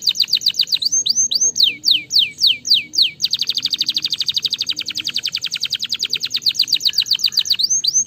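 Domestic canary singing. A fast trill of rapidly repeated notes gives way about a second in to a run of slow, falling whistles. Then comes another long, fast trill, and a couple of falling whistles near the end.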